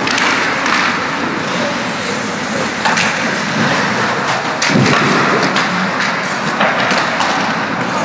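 Ice hockey play on a rink: skates scraping the ice and sticks clacking on the puck, a steady hiss of noise broken by many sharp clicks, with a louder knock about halfway through.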